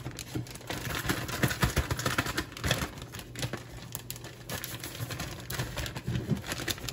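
Clear plastic bag of fish-fry coating mix crinkling and rustling as it is handled, in many short irregular crackles.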